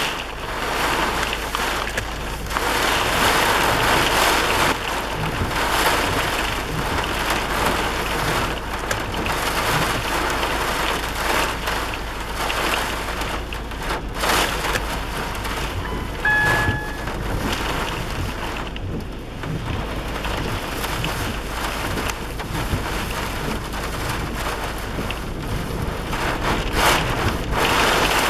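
Rain and gusting wind in a storm: a steady rushing hiss that swells and eases from gust to gust, with a short beep about halfway through.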